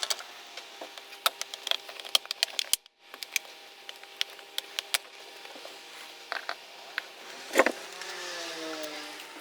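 Plastic bottom cover of a Lenovo IdeaPad 320 laptop being fitted back on: a run of sharp clicks and taps as it is handled and its clips snap into place, with one louder knock about seven and a half seconds in, over a faint steady hum.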